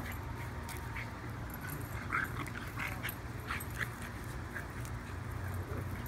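A French bulldog puppy and a dachshund play-wrestling, with short high-pitched dog noises every half second or so, over a steady low rumble.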